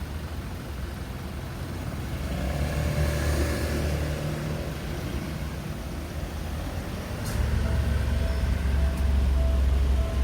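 Road traffic passing through a crossroads: vehicle engines rumble by, one swelling about two seconds in and a louder one from about seven seconds in.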